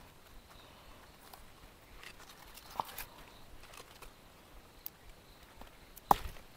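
Tender bharangi (Clerodendrum serratum) leaf stalks being snapped off the shrub by hand: a few scattered sharp snaps, the loudest near the end.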